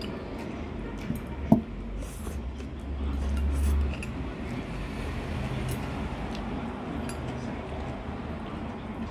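A person slurping and chewing noodles, with a sharp clink of chopsticks against the bowl about a second and a half in, over a steady low hum.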